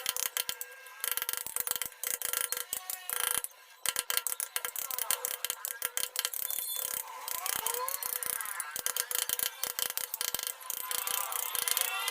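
Wood-carving tools cutting and scraping wood: a rapid, irregular run of clicks and short scraping strokes.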